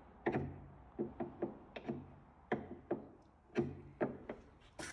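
About a dozen irregular sharp knocks from hand-tool work on a grand piano's soundboard, each followed by a short, low ring from the board.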